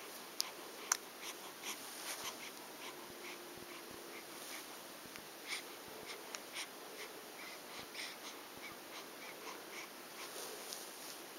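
Faint wheezy, snuffling breaths with many small scattered clicks, two sharper clicks about half a second apart near the start.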